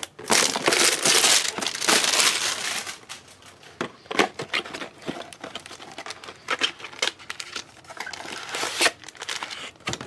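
Plastic wrapping on trading-card packaging crinkling and tearing as it is opened. The dense crinkling lasts about the first three seconds, then gives way to scattered short crackles and clicks.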